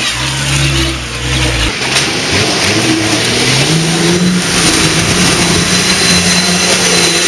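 Modified Nissan Patrol off-roader's engine revving hard under load, the pitch climbing about halfway through and then held high as it pushes through a water-filled mud pit, with muddy water splashing and spraying from the tyres.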